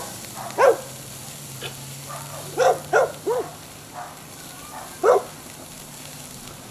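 A dog barking in short single barks, about six of them at uneven intervals, over the steady faint hiss of meat searing on a charcoal grill.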